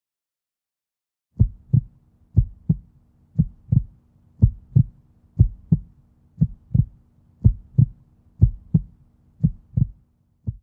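Heartbeat sound effect: paired low thumps, lub-dub, about once a second, starting after a second and a half of silence.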